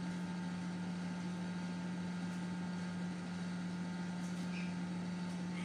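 A steady low machine hum, even and unchanging, as from a running motor or kitchen appliance.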